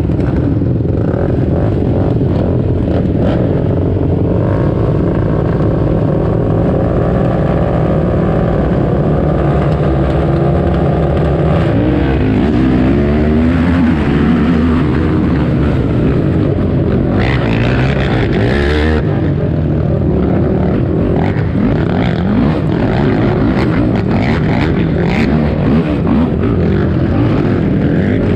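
Yamaha YFZ450 race quad's single-cylinder four-stroke engine at racing throttle, its pitch climbing and dropping as the rider works the throttle and gears, with other quads' engines mixed in. A short hiss cuts across about two-thirds of the way through.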